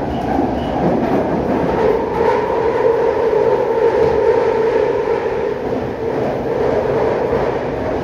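London Underground 2009 Stock train heard from inside the carriage while running through a tunnel: a loud, steady rumble with a droning tone that is strongest in the middle of the stretch.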